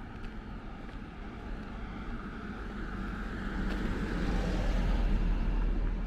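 A passing vehicle: a broad rumble that swells to its loudest about five seconds in and then starts to ease off.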